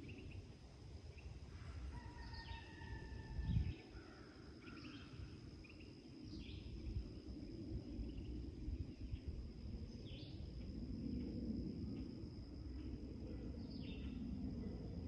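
Outdoor rural morning ambience: a bird gives a short chirp every second or two, with a few whistled notes, over a steady high insect drone and a low rumble. A single thump about three and a half seconds in is the loudest sound.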